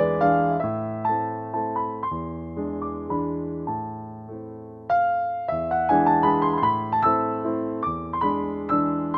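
Background piano music: a gentle melody of struck notes that each ring and fade, with a fresh phrase starting about five seconds in.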